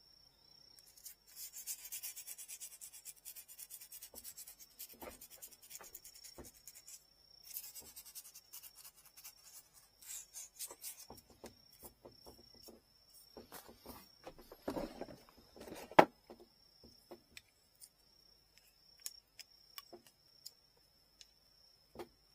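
Quick back-and-forth hand abrading strokes on a bamboo rod section for about eight seconds, with a short break partway. Then scattered clicks and knocks of the piece being handled, with one sharp knock about sixteen seconds in.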